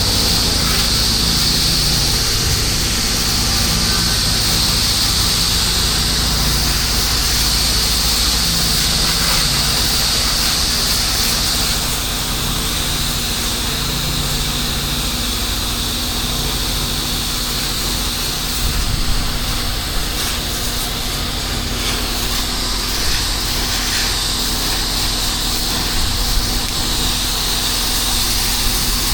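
Pressure-washing equipment running steadily: an engine's drone under the hiss of water spraying. The hiss eases about twelve seconds in, with a few light knocks later on.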